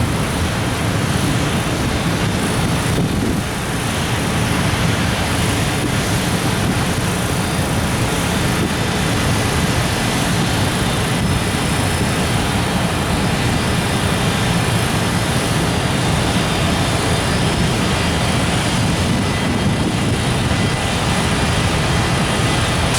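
Freight train of container wagons rolling past, a steady rumble of steel wheels on rail that holds at the same level throughout.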